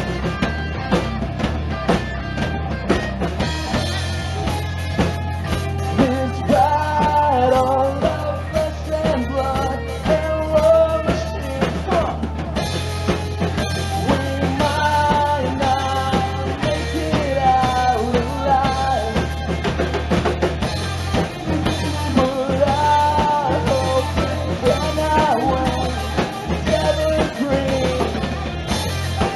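Live hard rock band playing: distorted guitars, bass and a driving drum kit, with a lead singer coming in a few seconds in and singing a melody over it.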